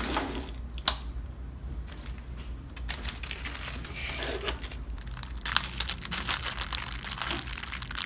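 Small plastic bag crinkling as it is handled and opened by hand, with a sharp click about a second in.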